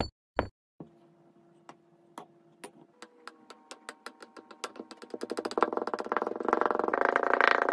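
Purple foam cubes being pressed down into a glass by a wooden tamper. After a few short taps, a run of ticks from the foam speeds up into a loud squeaky creak, the rub of foam being squeezed against the glass, over the last few seconds.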